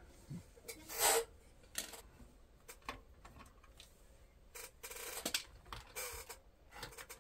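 Scattered light clicks, knocks and rubs from hands handling the opened metal chassis and plastic parts of a Betamax video recorder. A brief scrape about a second in is the loudest.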